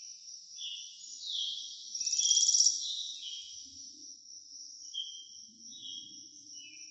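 High-pitched animal calls: short chirps repeating over a steady high buzz, with a louder fast pulsed trill about two seconds in, like insects and birds calling together.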